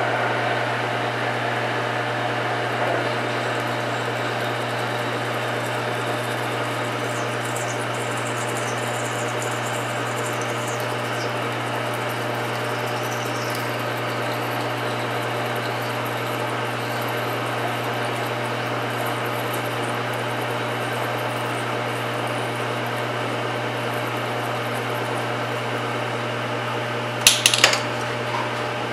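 Metal lathe running steadily while a drill in the tailstock bores into the end of a muzzle brake blank, with faint high squeaks from the cut in the first half. A brief metallic clatter comes near the end as the tailstock is worked.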